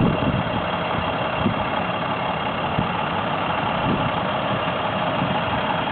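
Engine of a small well-drilling truck running steadily, with a few brief low thumps.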